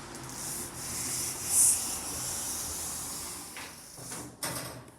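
Passenger lift doors sliding, with a steady hiss for about four seconds that ends in a short knock as they come to rest.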